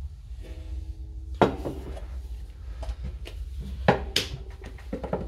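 Hard tool parts being handled on a workbench: a few sharp knocks and clatters, the loudest about a second and a half in and again about four seconds in, over a steady low hum.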